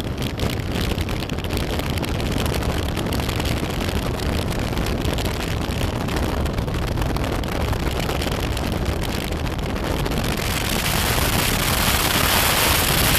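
BMW F800GS motorcycle running steadily on the move, with wind noise on the microphone. About ten seconds in, the hiss grows louder.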